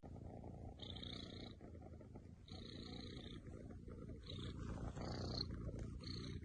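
Cat purring, faint and steady, with a few short higher-pitched sounds coming and going over it.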